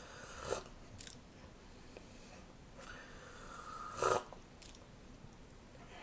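A person sipping coffee from a cup: a short sip about half a second in, and a longer drawn-in sip that ends louder just after four seconds in.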